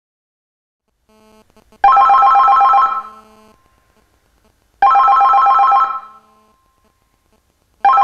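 Geemarc CL2 telephone ring indicator sounding its loud electronic ring, signalling an incoming call. It gives three warbling bursts of about a second each, about three seconds apart, the last starting near the end.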